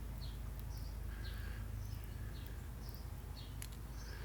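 A small bird calling repeatedly in short, high, down-slurred chirps, about two to three a second, over a faint steady low hum.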